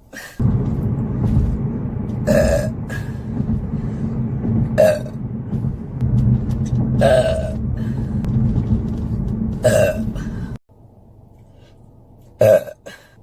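A person burping over and over: five short, loud burps about two and a half seconds apart. Under them is a steady low rumble that stops abruptly about three-quarters of the way through.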